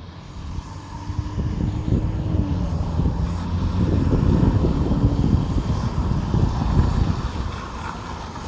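A passing vehicle: a low engine and road rumble that swells to a peak in the middle and fades toward the end.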